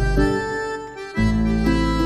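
Background music: held chords over a steady bass line, the chord changing about a second in.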